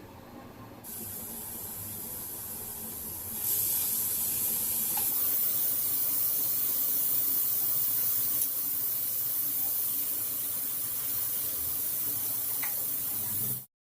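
Steady hissing that steps louder twice, about three and a half and five seconds in, then cuts off suddenly just before the end.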